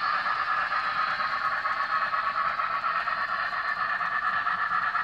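N scale model trains running on the layout track: a steady whir of small motors and wheels on rail.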